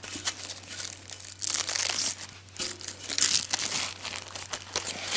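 Packing wrap being torn and crumpled off a new exhaust part, in irregular rustling crinkles.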